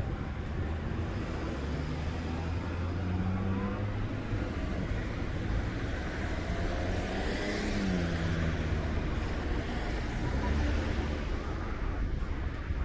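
A car passing by. Its engine hum builds, and about seven to eight seconds in it goes past with the pitch dropping, then fades.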